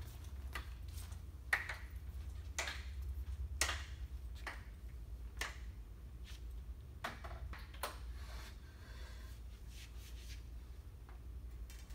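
Scattered light knocks and clicks from a large solar panel being handled and set against a forklift's forks, over a low steady hum.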